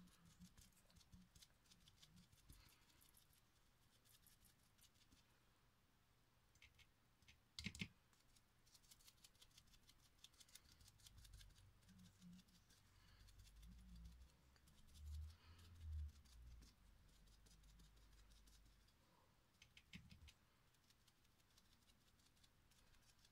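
Near silence with faint soft taps and rustles of a paint sponge dabbing on a glass vase, a sharper click about eight seconds in and a couple of low bumps about two-thirds of the way through as the vase is handled.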